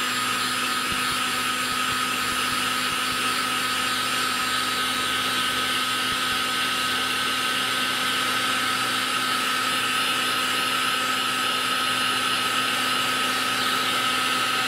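Wagner hot air gun running steadily with a constant fan whine, blowing hot air to shrink heat-shrink tubing onto a crimped ring terminal on a jumper wire.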